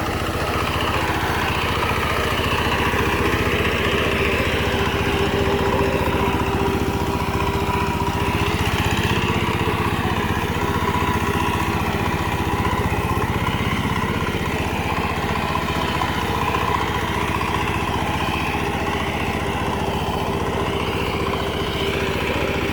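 Rice reaper's small engine running steadily at a constant speed while it cuts the rice.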